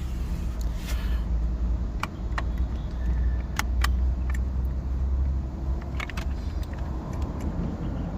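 Scattered sharp clicks and light knocks of hands working at a car's interior plastic cover, over a steady low rumble.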